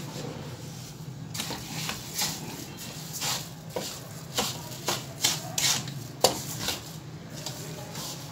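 Slotted wooden spatula stirring grated carrot and sugar in a metal karahi, scraping and knocking against the pan in irregular strokes from about a second and a half in, over a low steady hum.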